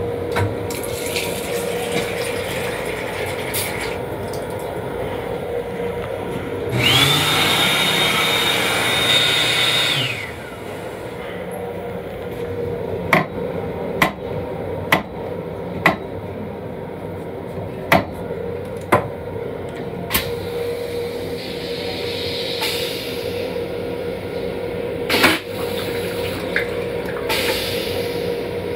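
Long Island Rail Road M7 railcar toilet flushing: a loud rush with a high whine that rises and holds for about three seconds, starting about a quarter of the way in, over the steady hum of the running train. Later comes a run of sharp clicks about once a second.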